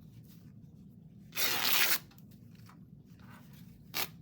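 A strip of fabric torn off in one quick rip of about half a second, then a short second rip near the end.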